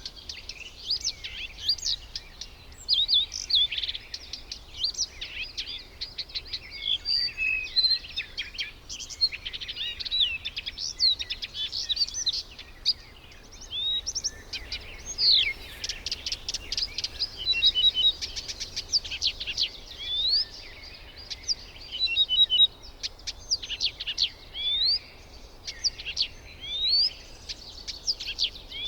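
Birds chirping and calling: many overlapping short whistles, rising sweeps and fast rattling trills.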